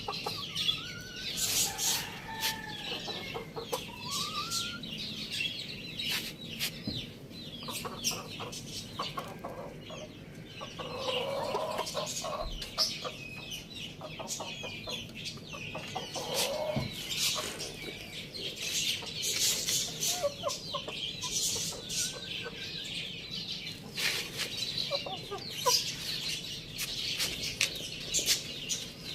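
Hen and rooster clucking in short, scattered calls while feeding, over a steady patter of quick sharp ticks from pecking at the food.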